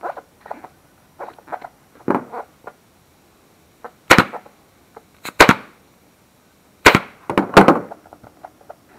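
Pneumatic upholstery stapler firing 8 mm staples through a seat cover into a plastic dirt-bike seat base: about six sharp shots, each with a short hiss of air, starting about four seconds in. Before them, quieter rustling and tapping as the cover is pulled tight by hand.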